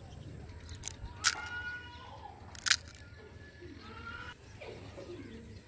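Two sharp knocks of kitchen utensils being handled, each followed by a brief ringing tone, with birds calling faintly in the background.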